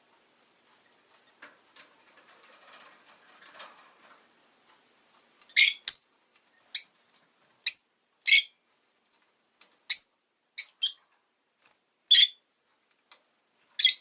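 Rosy-faced lovebird giving a run of about ten short, sharp, high-pitched chirps, starting about five seconds in and spaced irregularly, after a few seconds of faint rustling.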